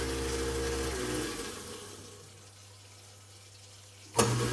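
InSinkErator garbage disposal motor running with a steady hum and water in the chamber, winding down and stopping about a second in, then starting up again abruptly near the end: the reinstalled disposal working from its air-switch button.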